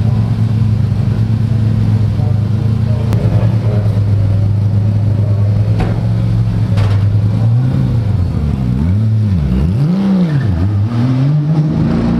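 A Porsche 911 race car's engine running at a steady pitch in the pit box; from about eight seconds in its pitch rises and falls several times as the car pulls away down pit lane.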